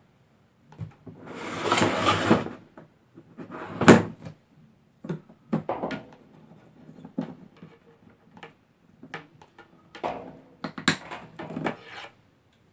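Cat6 network cable being pulled and handled: a rustling drag lasting over a second, then a string of scattered knocks and clatters.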